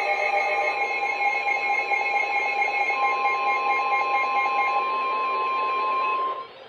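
Emergency Alert System attention signal: a loud, steady electronic two-tone alarm that announces a warning message. The lower tone stops about five seconds in, and the higher tone cuts off about a second later.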